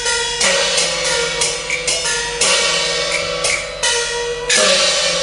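Cantonese opera accompaniment playing an instrumental passage between sung lines. Held melodic instrument tones are punctuated by cymbal and percussion strikes, about one every half second to a second.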